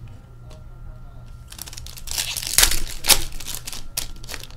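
Foil hockey card pack wrapper crinkling as it is torn open by hand. It starts about a second and a half in and is loudest around the middle.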